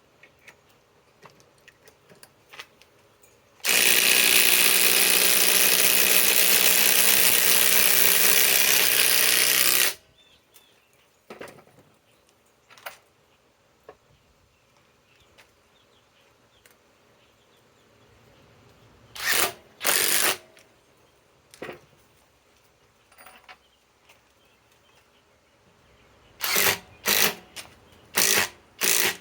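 Cordless compact impact driver driving a 4-inch TimberLOK structural screw into wood, its hammer running steadily for about six seconds. Later come two short trigger bursts, then four quick bursts near the end.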